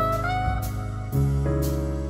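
Jazz background music: a melody line moving from note to note over long held bass notes.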